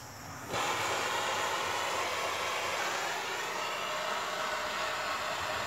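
Handheld gas blowtorch lighting: a click of the igniter, then about half a second in the flame catches and burns with a steady hiss. The flame is heating a seized tie rod end nut to free it.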